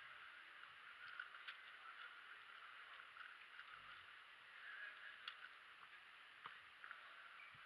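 Faint, scattered clicking of a MoFangGe QiYi WuQue 4x4 speedcube's layers being turned quickly by hand, with a few sharper clicks, over a steady faint hiss.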